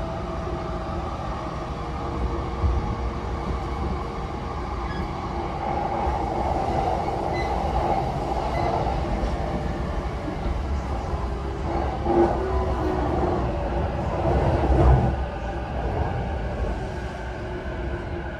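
Running noise inside a JR East E233 series commuter electric train car: a steady rumble of wheels on rail, with a faint whine that fades over the first few seconds. Two louder knocks come near the end, the second the loudest.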